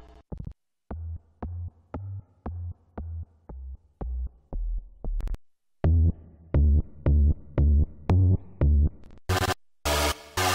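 Little-K software synthesizer playing short, bass-heavy synth notes at about two a second, each with a clicky attack. The notes pause briefly after the start and again about five seconds in, come back louder, and near the end a bright, full lead sound takes over as the LD - Hardstyle preset is selected.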